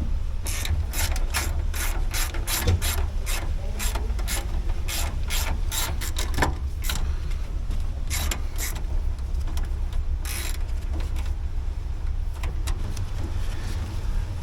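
Ratchet wrench clicking in short runs of strokes, over a steady low rumble.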